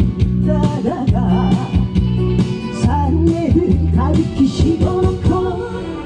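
A woman singing into a microphone over amplified backing music with a steady beat, her voice sliding and bending between notes.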